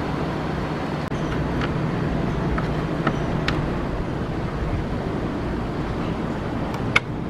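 A few light clicks and a sharper click near the end from hands working a motorcycle's plastic trim panel back into place, over a steady low rumble.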